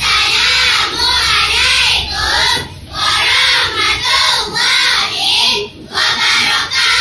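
A group of girls performing kalam jama'i, an Arabic choral recitation: many young voices chanting in unison in loud, sing-song phrases, with two brief pauses between phrases.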